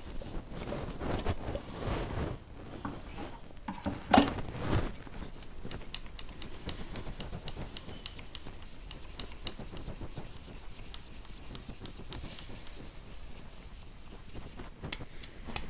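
Ground dry ginger (sonth) powder being sifted through a metal sieve, fingers rubbing and pressing it across the mesh with a dry, rasping scrape. The rubbing is louder in the first couple of seconds, then steady and softer. There is one sharp knock about four seconds in.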